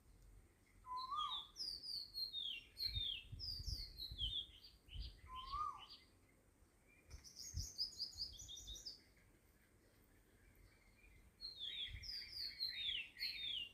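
Birds chirping: flurries of short, high, falling chirps with brief lulls between them, and a lower call that rises and falls twice.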